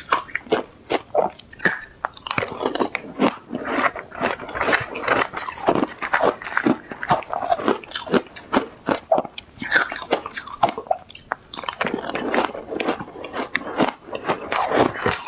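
Ice being bitten and crunched between teeth: a dense, irregular run of crackling crunches.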